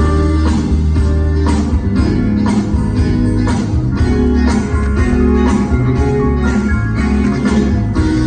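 Live band playing an instrumental passage with no vocals: acoustic and electric guitars, keyboards and drums over a steady beat.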